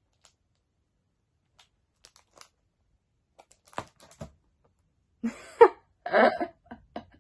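Faint scattered clicks and two louder knocks about four seconds in as the packaging of an item is handled, then a woman's short excited wordless vocal sounds.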